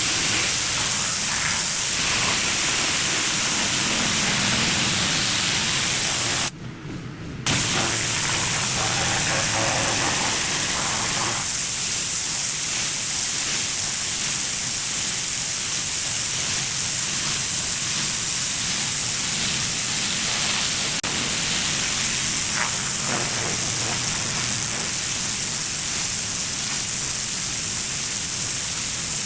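Pressure washer spraying a dirty concrete driveway: a steady, loud hiss of the high-pressure water jet with a low hum underneath. The spray cuts out for about a second some seven seconds in, then resumes.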